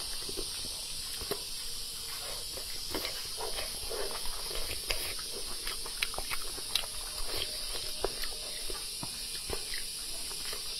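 Close-up chewing and small wet mouth clicks of a person eating braised pork belly, irregular and soft, over a steady background hiss.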